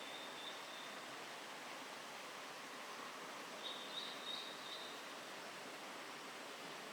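Eastern spot-billed duckling peeping, a short run of high thin peeps a little past the middle, over a steady hiss of flowing water. The chicks have been left behind by their mother and call for her.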